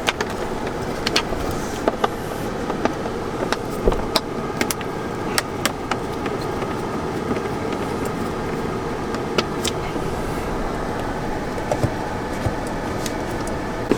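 Scattered sharp clicks and taps from a screwdriver and screws being worked out of a plastic dashboard panel, over a steady background hum.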